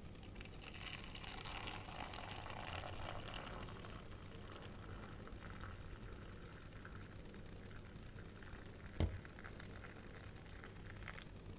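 Hot water poured from a plastic measuring jug into a stainless steel bowl: a faint splashing pour, strongest in the first few seconds, then tapering off. A single short knock comes near the end.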